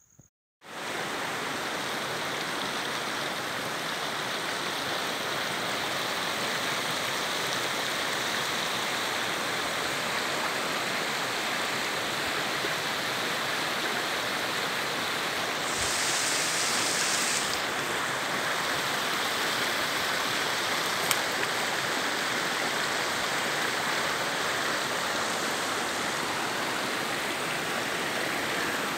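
Shallow mountain stream running over rocks and small cascades: a steady rush of water that cuts in about a second in.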